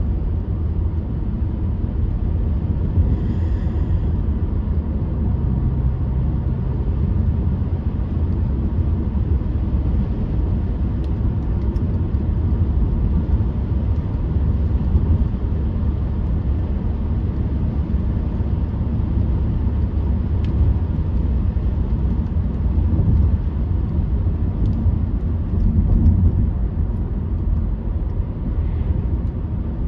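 Car driving along, its steady low road and engine rumble heard from inside the cabin.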